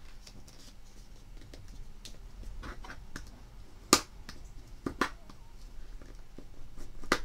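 Folded paper handled and pressed flat with a bone folder: soft paper rustling with three sharp clicks, the loudest about four seconds in.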